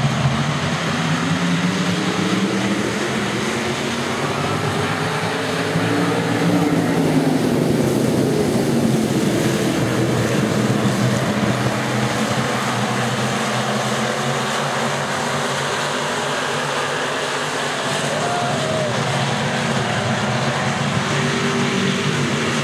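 A pack of hobby stock race cars racing on a dirt oval, their engines revving, rising and falling in pitch as the cars go around.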